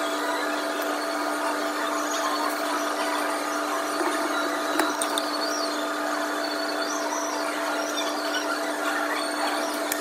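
Electric coffee grinder's motor running steadily, an even mechanical hum with a constant tone. A light click about halfway through.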